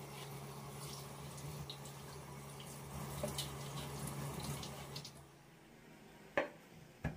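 Liquid running steadily, stopping about five seconds in, followed by two sharp knocks.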